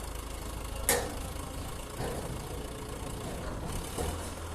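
Earthmoving machine's engine idling with a steady low rumble, with a sharp knock about a second in and a few fainter knocks later.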